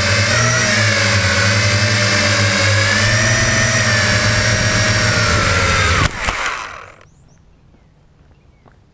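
Quadcopter's four electric motors and propellers whining in flight, the pitch wavering slightly, then cutting off suddenly about six seconds in as it lands and the propellers spin down within a second.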